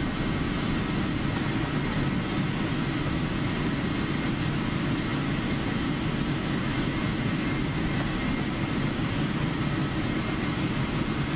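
Boeing 777 taxiing with its jet engines at idle, heard from a cabin seat by the wing: a steady low rumble and hiss with a faint steady high whine.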